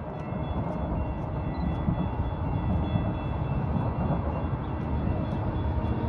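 Train running past with a steady low rumble.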